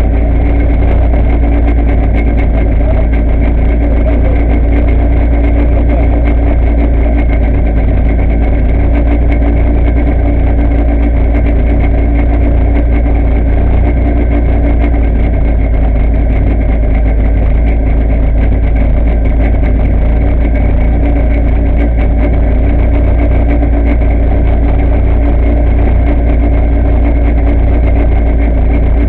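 Volkswagen Gol N1 rally car's engine idling steadily, heard from inside the cabin while the car stands still.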